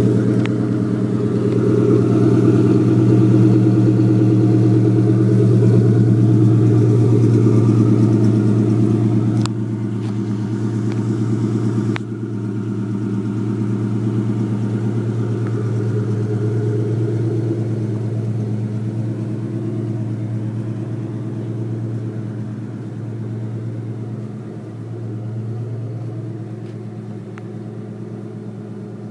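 2004 Mustang GT's 4.6-litre V8 idling steadily shortly after a cold start, through long-tube headers, an off-road H-pipe and Mac mufflers, with a deep, loud exhaust burble. It grows fainter through the second half.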